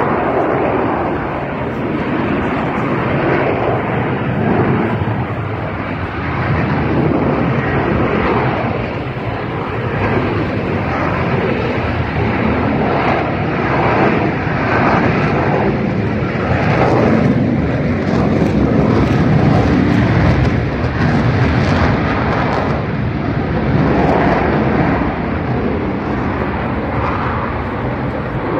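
Fixed-wing airplane flying by, its engine noise a loud, continuous drone that swells and eases over the seconds.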